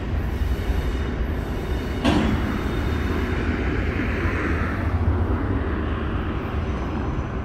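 CSX intermodal freight train rolling past, with the steady rumble of its wheels on the rails. There is a sudden sharp knock about two seconds in, followed by a brief hiss or squeal.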